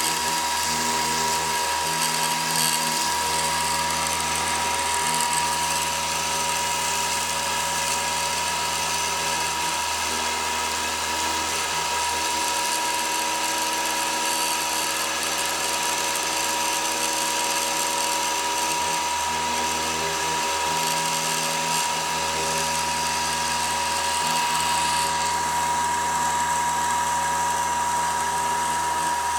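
CNC router spindle running steadily while a V-bit carves marble: a constant high whine over a continuous hiss of the bit cutting the stone.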